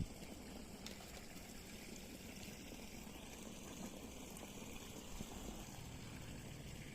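Faint, steady flow of stream water.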